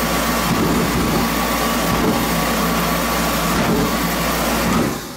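Mr. Heater forced-air diesel heater running: steady fan and burner noise with a faint high whine and low hum, dying away near the end. The heater keeps sputtering on and off and smoking, a sign it isn't burning right.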